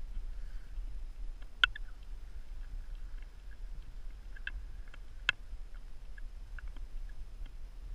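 Small open boat, a Drascombe Gig, moving slowly on calm water: a low steady rumble with scattered light clicks and knocks, the sharpest about one and a half seconds and five seconds in.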